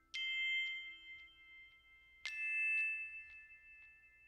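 Background music: two struck, bell-like chords of several ringing notes, about two seconds apart, each dying away slowly, with faint light ticks between them.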